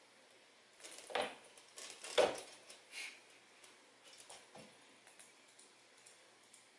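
A British shorthair cat's paws thudding and scrabbling on a hardwood floor as it leaps and lands: a few soft thumps, the loudest about two seconds in, with light ticks between.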